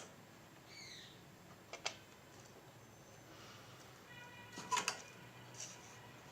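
A few light clicks and taps from soldering work on a circuit board: one about two seconds in and a cluster near the end. A short, high, falling chirp comes about a second in.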